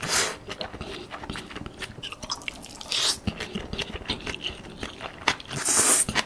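Close-up eating sounds of stir-fried rice noodles: wet chewing and mouth clicks, with short slurps of noodle strands at the start and about three seconds in, and a longer, louder slurp near the end.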